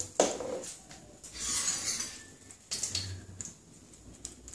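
A spoon clicking against a container and a short scraping rustle about a second and a half in, as salt is scooped out and sprinkled over raw prawns in a glass bowl.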